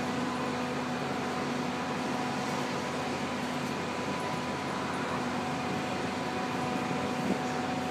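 Steady mechanical hum: an even drone with a constant low tone and several higher steady tones over it, with one small click near the end.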